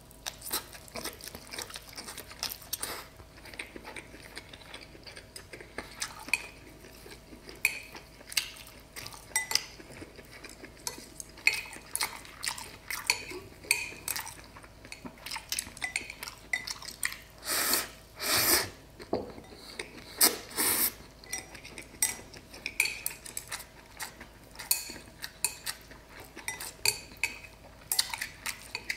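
Wooden chopsticks clicking and scraping against a ceramic bowl of rice noodles, in many short, irregular clicks. Two longer, louder noises stand out a little past the middle.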